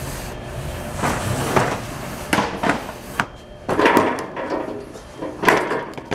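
Long cardboard boxes of heavy-duty steel shelving dragged and slid off a store shelf: a run of irregular scraping rubs and knocks, loudest about four and five and a half seconds in.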